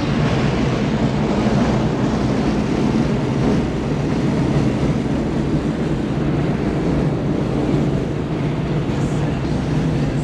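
Car cruising at a steady highway speed: an even engine drone under continuous wind and road noise.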